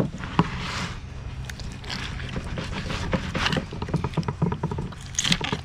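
Boning knife cutting the collar off a sweetlips behind the pectoral fin: a scatter of small clicks and crunches as the blade works through bone and scales.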